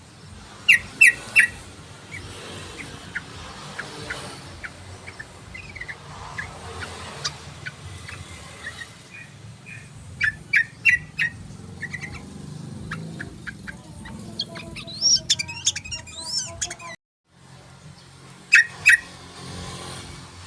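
Yellow-vented bulbul (trucukan) calling in short groups of sharp chirps, with a quick warbled phrase past the middle. The sound cuts out for a moment, then two more chirps follow.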